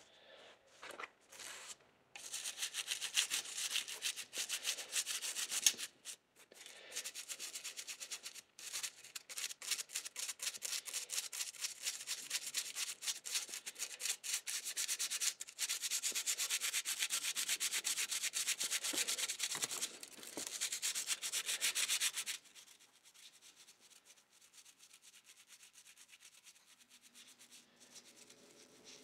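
Toothbrush bristles scrubbing tarnish off the brass shell of a model steam locomotive, in rapid back-and-forth strokes with a few short pauses. The scrubbing stops about three-quarters of the way through.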